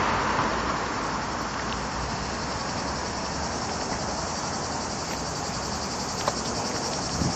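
Steady city street noise, a low traffic rumble with a few faint clicks.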